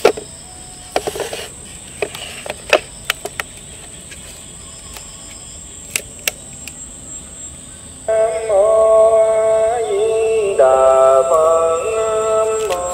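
Sharp plastic clicks and knocks from a smashed solar-powered Buddhist chanting box being handled. About eight seconds in, its small speaker starts playing a sung Buddhist chant with a steady stepped melody, showing that the box still works although the glass over its solar panel is broken.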